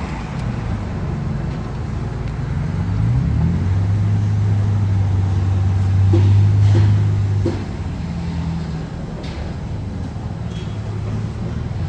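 2001 Nissan R50 Pathfinder's 3.5-litre V6 engine running as the SUV drives slowly past. The engine picks up revs about three seconds in and is loudest about six to seven seconds in, then settles back.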